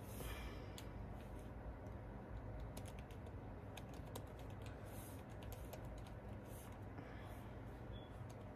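Faint, irregular clicks of fingers tapping on a smartphone touchscreen, over a steady low hum.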